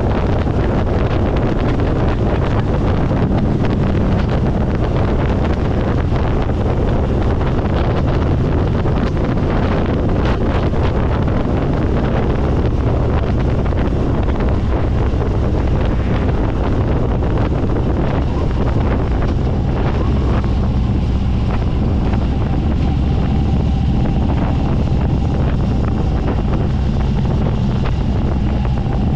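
Heavy wind rush over the camera microphone on a moving Harley-Davidson motorcycle, with the bike's engine running steadily underneath at road speed.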